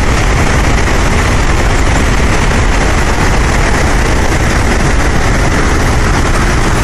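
Flood-release water pouring out of Summersville Dam, an earth dam, heard as a loud, steady rush of water with a deep rumble underneath.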